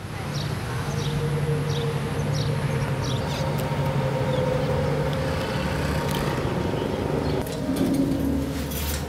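Urban street ambience: a steady drone of traffic with a low hum. Short high chirps repeat about twice a second over the first few seconds.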